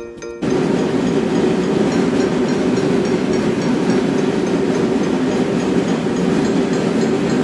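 Machinery in a grain store running: a loud, steady mechanical rumble and hum with a faint regular ticking, cutting in about half a second in.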